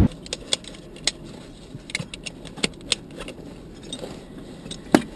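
Scattered sharp clicks and light rattles of equipment being handled in a jet's cockpit, over a low steady hum; one click about five seconds in is the loudest.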